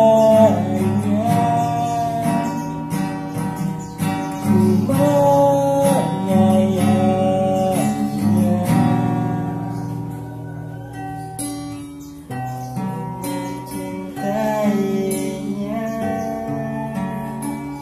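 Strummed acoustic guitar accompanying two young men singing a love song in turn, with a short break in the singing about ten seconds in.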